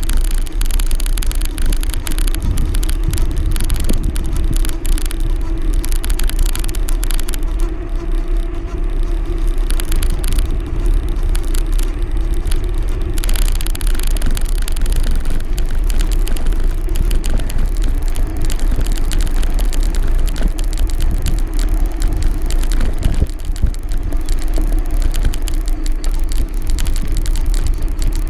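Steady noise of a moving road vehicle: a constant engine hum over a loud low rumble and hiss.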